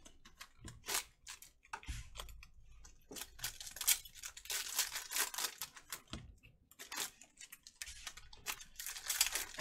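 Foil trading-card packs torn open by hand: the wrappers rip and crinkle in a quick run of short bursts.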